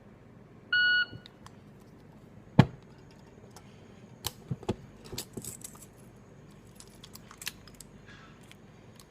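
A short electronic timer beep about a second in, then scattered metallic clicks and clanks of a 1911 pistol being taken apart by hand, with one sharp knock about two and a half seconds in.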